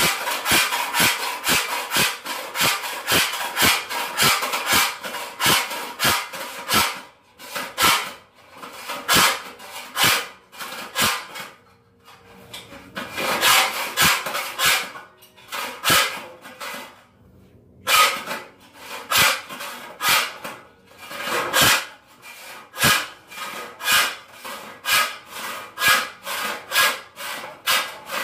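Handsaw cutting through a wooden board in quick, even back-and-forth strokes, about three a second, stopping briefly a few times.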